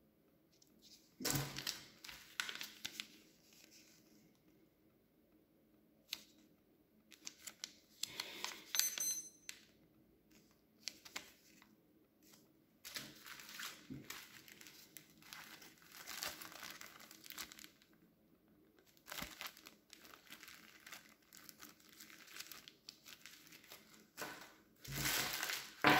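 Plastic and foil ration packaging crinkling and tearing in irregular bursts as the packs are handled and opened, with a few sharp clicks between them.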